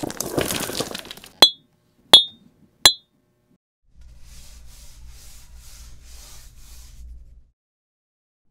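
A brief rattling clatter of small hard pieces, then three sharp ringing clinks about three-quarters of a second apart. After a gap, about six soft rhythmic scrapes, roughly two a second, run over a low hum and stop about a second before the end.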